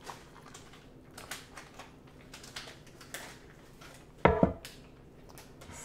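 Light kitchen clinks and taps, then a sharp, ringing clank of a stainless steel kettle set down on the stove about four seconds in.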